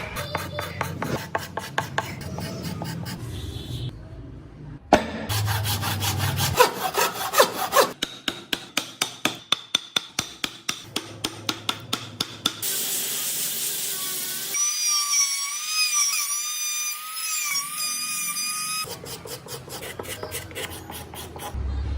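Hand tools working wood, sawing and rasping in repeated strokes at about two a second, in short edited segments. Partway through there is a few seconds of steady hiss, then a wavering high whine before the strokes return.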